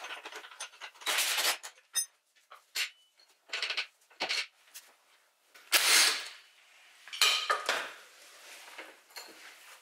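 Steel bolts and hand tools clinking and clattering in a string of separate knocks, the loudest about six seconds in, as engine mounting bolts are taken out of a motorcycle frame.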